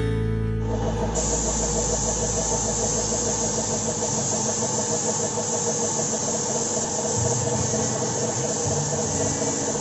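Compressed-air paint spray gun hissing steadily as it sprays the magenta-violet colour coat onto motorcycle body panels, with a steady motor hum beneath it.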